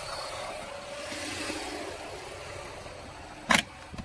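Cold Lada Niva Legend 1.7-litre four-cylinder engine idling steadily while it warms up. A single sharp click sounds about three and a half seconds in.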